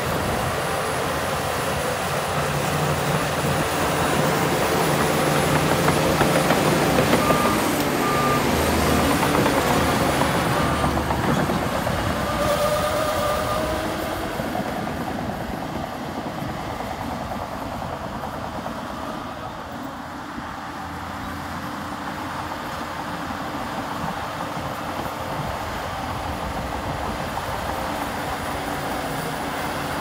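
Heavy diesel earthmoving machinery running steadily under load, louder for the first ten seconds or so and then easing off. A reversing alarm beeps a few times about a quarter of the way in.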